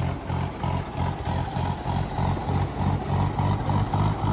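Diesel tractor engine running with a steady, low, rhythmic throb of about four beats a second.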